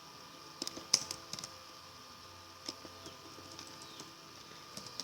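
Scattered clicks and taps from a computer keyboard and mouse: a quick cluster about a second in, a single click near the three-second mark and a few more near the end, over a faint steady electrical hum.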